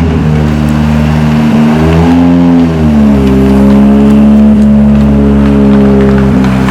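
Ford Escort RS Cosworth's turbocharged four-cylinder engine running. Its revs rise about two seconds in, drop a second later and hold steady, then climb again at the end.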